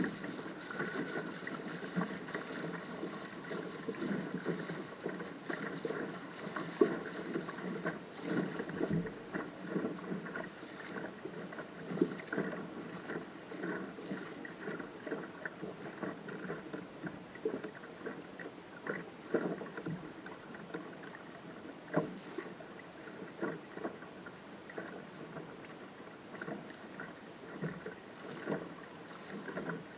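Water rushing along and slapping against the hull of a small sailing dinghy under way through choppy water, with frequent irregular splashes.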